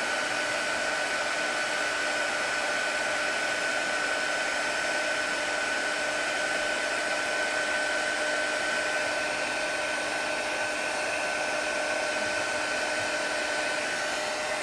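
Heat gun blowing steadily, a constant rush of air with a steady whine from its fan motor, warming an Apple Watch's display to soften the adhesive seal.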